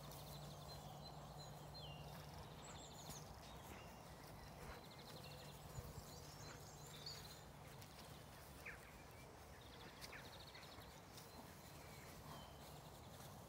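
Quiet outdoor morning ambience: faint songbird trills and chirps, a few soft knocks, and a low steady hum that fades out about halfway through.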